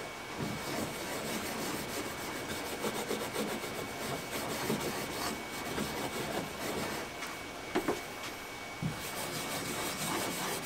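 A cloth being rubbed back and forth over the inside of a canoe hull, wiping the sanded patch areas with alcohol to strip dirt and oily residue before adhesive goes on. There are a couple of light knocks about eight seconds in.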